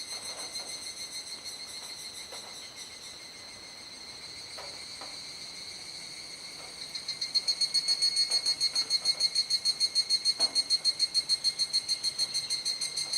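Cicadas singing in a dusk chorus: a steady high-pitched drone, joined about seven seconds in by a louder pulsing call that repeats about four times a second.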